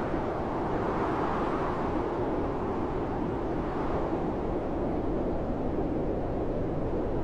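Strong blizzard wind blowing steadily, a dense rushing noise that swells gently about a second in and again near four seconds.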